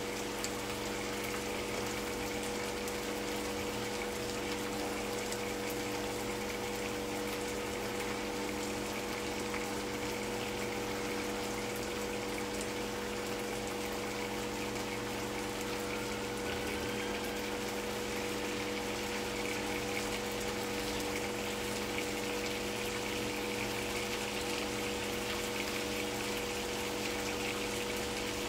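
Steady mechanical hum with a few constant tones, under the even hiss and faint crackle of onions frying in a pan on the hob.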